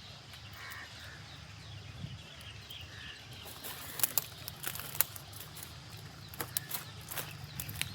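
A series of sharp clicks and taps, several in the second half, over a steady low outdoor rumble. Faint bird chirps are heard in the first few seconds.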